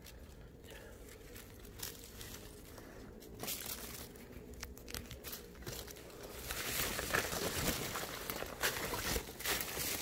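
Footsteps crunching and rustling through dry leaves, pine needles and brush on a forest floor, sparse at first and becoming busier and louder in the second half.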